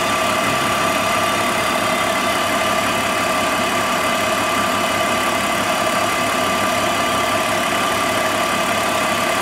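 BMW car engine idling steadily, with a constant high whine running through the engine noise.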